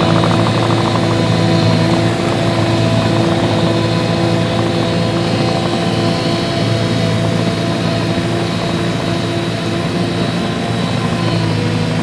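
Diesel engine of a tracked reed canary grass harvester running steadily at an even pitch as the machine drives off across a field, getting slightly quieter toward the end.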